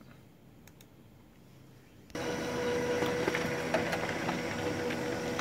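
Samsung ML-2525 laser printer starting up suddenly about two seconds in, after a couple of faint clicks. It then runs steadily with a hum and light ticks as it pulls and prints a page. The page feeds normally, the pickup solenoid having been fixed with a small sticker so that it no longer keeps pulling paper continuously.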